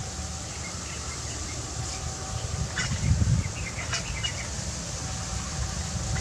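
Gusty wind rumbling on the microphone in an open field, with a few faint, short bird calls about two, three and four seconds in.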